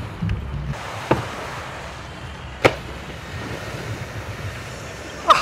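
Steady outdoor noise like wind and water, broken by two sharp knocks about one and nearly three seconds in. Near the end a short pitched call begins, like laughter or honking.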